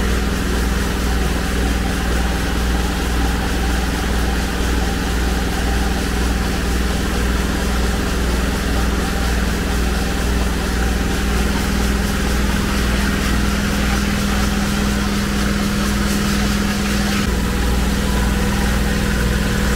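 Vapor honing cabinet running, a steady motor hum under the hiss of its nozzle spraying a slurry of glass bead and water at an aluminium cylinder head. The spray hiss cuts off a few seconds before the end.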